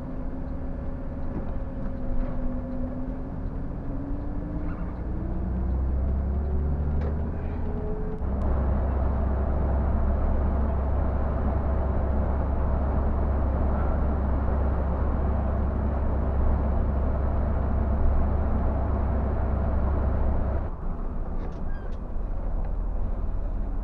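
Scania tour bus's diesel engine heard from inside the driver's cab as the bus accelerates, with a whine rising steadily in pitch for the first several seconds. About eight seconds in it changes suddenly to louder, steady running with a deep rumble and road noise, which drops noticeably about 21 seconds in.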